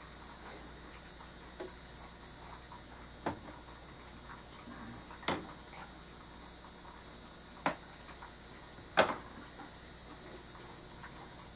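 Four sharp taps a second or two apart, with a few fainter ticks, from a paintbrush and tools knocking as oil paint is worked onto the board. The last tap is the loudest. A faint steady hiss runs under them.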